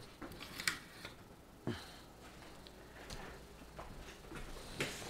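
A few scattered light clicks and knocks from someone moving about and handling equipment, over a faint hiss.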